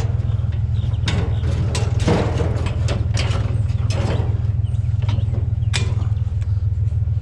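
Scrap metal being handled and shifted, a string of irregular clanks, knocks and creaks, over a steady low hum of an idling vehicle engine.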